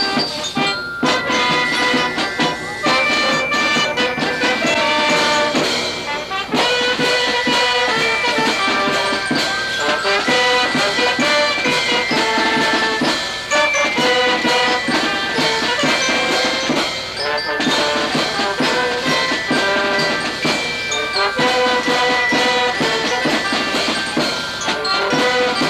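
Marching band playing: snare drums and a bass drum beating a brisk rhythm under horns carrying a melody.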